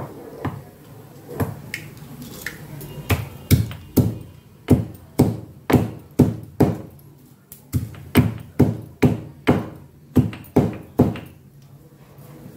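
Garlic being pounded with a pestle in a mortar: a run of sharp knocks with a short ring after each. A few light ones come first, then strong, steady ones about two a second, stopping about a second before the end.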